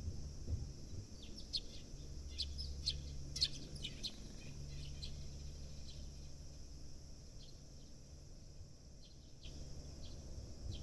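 Sparrows chirping: a quick run of short high chirps in the first few seconds, then scattered single chirps, over a steady low hum.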